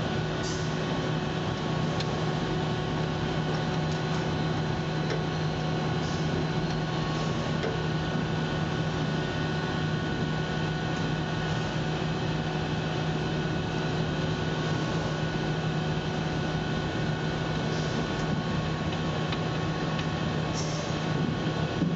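Steady low hum with a background hiss, like a fan or ventilation running, with a few faint brief clicks and rustles.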